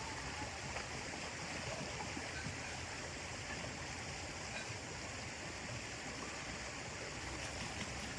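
Steady rushing of a river and waterfall.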